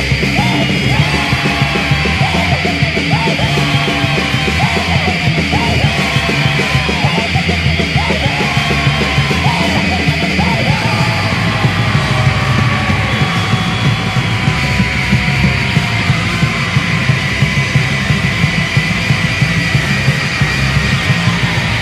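Noise punk recording: a dense wall of heavily distorted guitars and drums, with yelled vocals.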